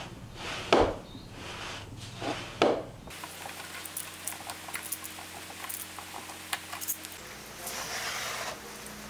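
F-style bar clamps being fitted and tightened on an MDF board: a sharp knock of metal and wood under a second in and another near three seconds, then light clicks as the clamp screws are turned, and a brief scrape as the board slides near the end.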